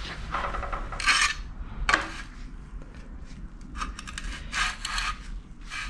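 A metal spirit level scraping and sliding over a flat steel plate in several short strokes, with a sharper metallic clack about two seconds in, as the plate is checked for straightness.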